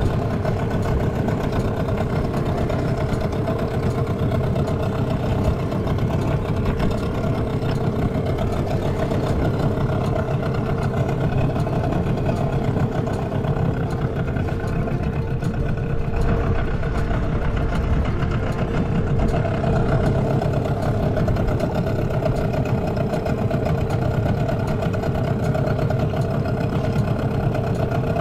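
Outboard motor running at a steady speed, heard close up at the stern as it pushes an inflatable boat along, an even drone that does not change.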